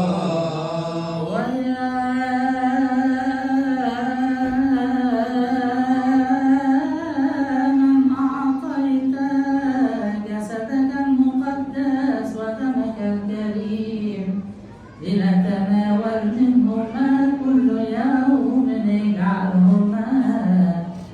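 A single voice chanting a long wordless melisma in Coptic liturgical style, holding notes and sliding slowly between pitches, with a short pause for breath about fourteen seconds in.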